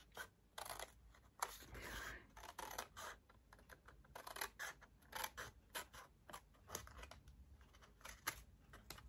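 Scissors cutting along curved lines in patterned craft paper: faint, irregular snips with light paper rustle.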